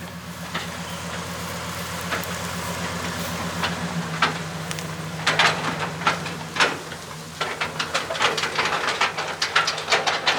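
Truck engine running under way, a steady low drone that shifts in pitch about four seconds in, with irregular clicks and rattles over it, more of them in the second half.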